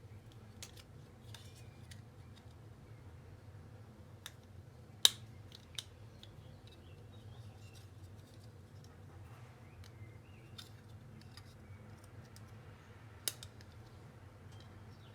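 Scattered small clicks and taps of laptop parts being handled during disassembly, with one sharp click about five seconds in and another near the end, over a steady low hum.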